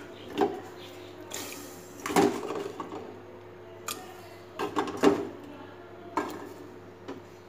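Metal spoon and chicken pieces knocking against a metal cooking pot (degchi) of hot water, as the chicken is put in and moved about. About seven sharp clinks and knocks, irregularly spaced, each with a short ring from the pot.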